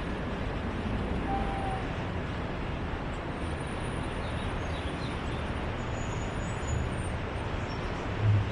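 Steady outdoor urban background: a continuous rushing hiss with passing-traffic rumble. A vehicle's low rumble swells near the end, and a few faint high chirps sit on top.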